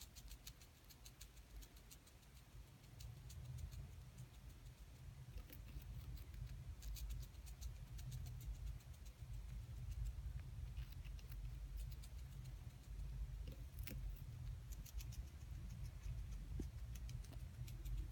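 Hamster gnawing and crunching a piece of carrot: faint, crisp little clicks in irregular clusters over a steady low rumble.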